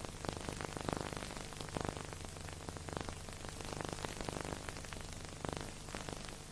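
Steady crackling hiss with scattered clicks over a low, steady hum: noise on the soundtrack rather than any scene sound.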